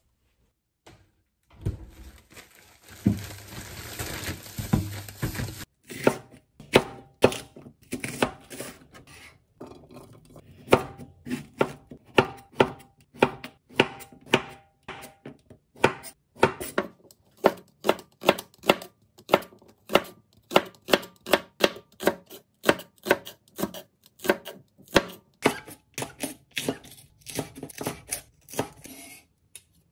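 A wide-bladed kitchen knife chopping through zucchini and green onion onto a wooden cutting board, in a steady run of sharp knocks about two a second. It follows a few seconds of even noise near the start.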